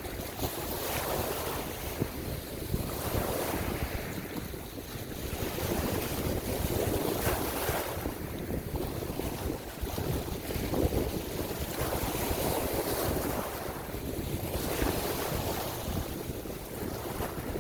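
Surf hissing as waves wash in, swelling and fading every few seconds, with wind rumbling on the microphone.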